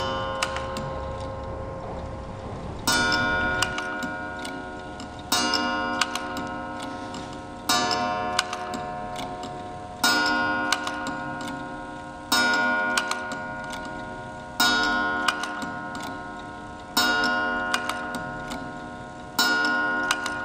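Black Forest dumpling eater automaton clock running: a loud strike with a ringing, fading resonance about every two and a half seconds, with lighter ticks of the mechanism between.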